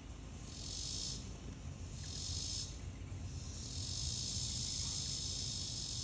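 Daytime chorus of insects: a high buzzing hiss that swells and fades in waves every second or so, with a longer, held swell near the end.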